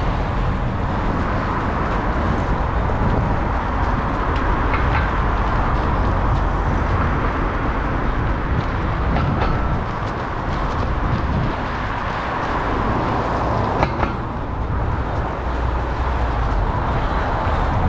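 Steady wind rumble buffeting the microphone of a runner's action camera while he runs, with a few faint knocks and a sharper one about two-thirds of the way through.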